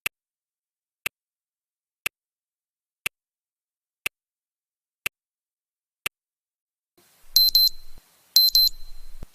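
Countdown timer sound effects: a sharp clock tick once a second, seven times. About seven seconds in, a digital alarm-clock beeping starts as the countdown reaches zero, in bursts of rapid high beeps about once a second.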